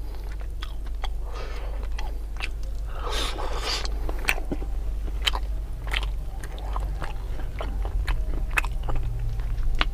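Close-miked chewing and biting of rice and spicy stir-fried chicken eaten by hand, with many short sharp clicks and crunches throughout.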